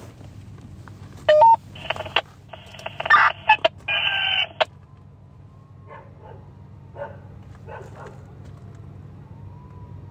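Radio scanner audio: a few short chirps and garbled, narrow-band transmission bursts in the first half, then a faint siren wailing slowly up and down in the background over a steady low hum.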